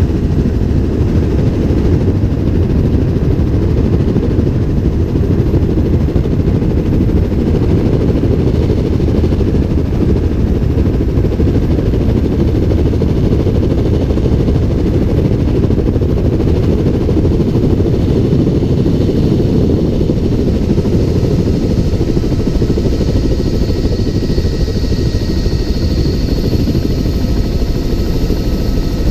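Helicopter in flight, heard from on board: a loud, steady rumble of rotor, engine and rushing air. A faint high whine comes in over it in the last few seconds.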